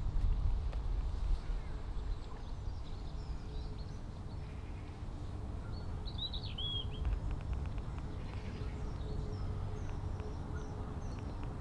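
Outdoor ambience: a steady low rumble with birds chirping. The clearest call comes about six seconds in, followed by a quick run of small ticks.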